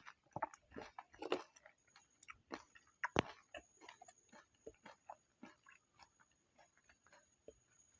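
Close-miked chewing of pani puri: crisp hollow puri shells crunching loudly in the first three seconds or so, then softer, wetter chewing clicks.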